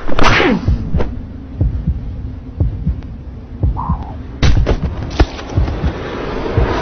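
Cartoon fight sound effects: a sharp slap right at the start, then a run of low, dull punch thuds, about one or two a second. A harder hit lands about four and a half seconds in.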